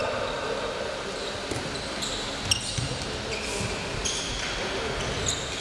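Handball drill on a wooden sports-hall floor: a handball bouncing and players' footsteps, with sneakers giving a few brief high squeaks on the boards. The loudest knock, about halfway through, is a ball hitting the floor.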